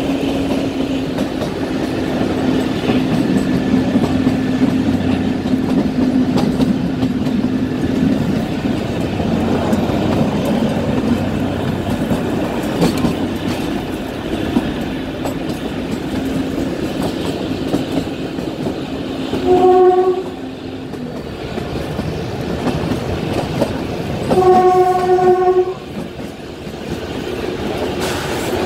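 Kalka–Shimla narrow-gauge toy train running, with steady rail and carriage noise. It sounds its horn twice in the second half: a short blast, then about four seconds later a longer one of about a second and a half.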